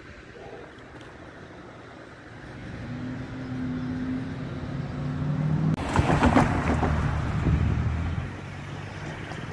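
A road vehicle approaching and passing close by: its engine note builds over a few seconds, then a loud rattling rush starts just past the middle, lasts about two seconds and dies down.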